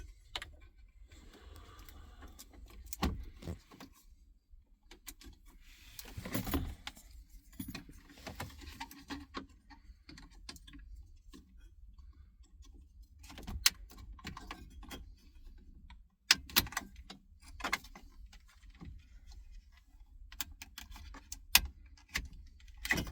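Scattered clicks, knocks and rattles of wiring plugs and a car stereo's plastic housing being handled as the connectors are unplugged from the back of the head unit, with cables rustling now and then.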